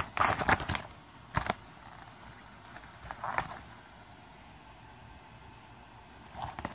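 A cat moving about in loose paper: a few short bursts of crinkling and crackling, the loudest in the first second, with single sharp rustles about a second and a half in, about three seconds in, and just before the end.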